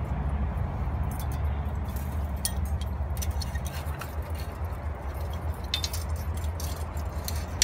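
Light metallic clinks and scrapes of barbed wire being wrapped and twisted with pliers on a steel fence wire strainer, scattered through, over a steady low rumble.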